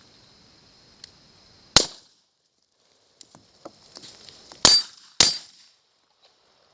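Three pistol shots: one alone about two seconds in, then two more about half a second apart near the middle.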